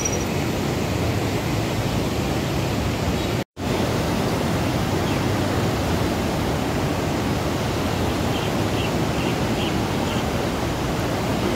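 Steady rushing of a fast, swollen river in flood: an even, churning water noise with no pauses. The sound cuts out for a moment about three and a half seconds in.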